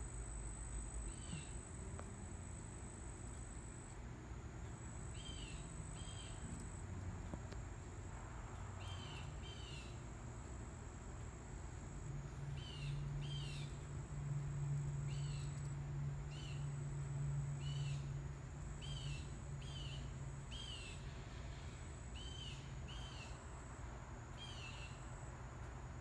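Outdoor ambience: a high, steady insect trill that breaks off briefly now and then, with short paired chirps repeating every second or few, over a low steady hum.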